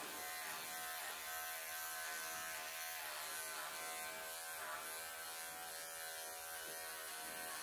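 Wahl electric pet clippers running with a steady buzz as they cut through a cat's long chest fur.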